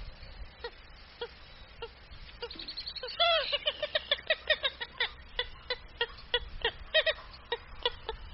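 Purple gallinule calling: short clucking notes spaced about every half second, breaking about two and a half seconds in into a fast, louder run of clucks that lasts about four seconds before slowing back to spaced notes.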